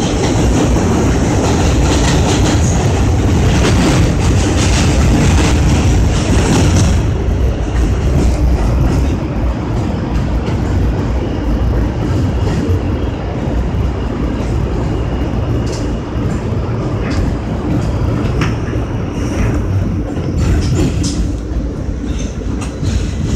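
New York City subway train running on elevated track, heard from inside the car: a steady rumble of wheels on rail with scattered clicks over rail joints. For about the first seven seconds it is louder and hissier, with a train passing on the next track, then it settles to a lower rumble.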